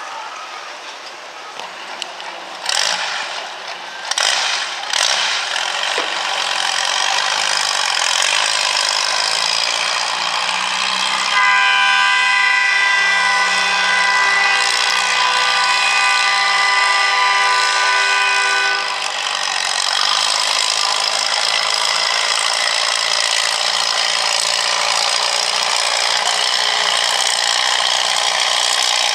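Antique farm tractor engines running hard during a tractor pull, a loud steady engine noise, with a high whine over it for several seconds in the middle.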